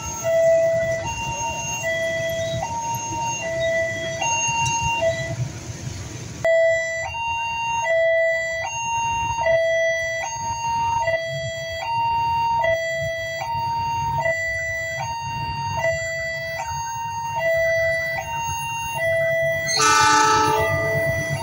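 A two-tone warning alarm alternating between a low and a higher note about once a second, on and on. Near the end a diesel locomotive horn sounds briefly.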